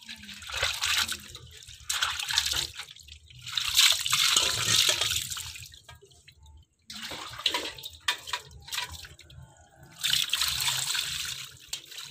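Water splashed by hand over a wet cat during a bath, coming in about five separate bursts of splashing and pouring with short pauses between them.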